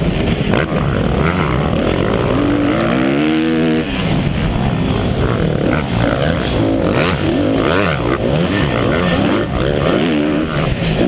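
The rider's own 250cc Honda motocross bike engine, loud and close, revving up and falling back over and over under hard throttle, with a sharp drop in revs about four seconds in.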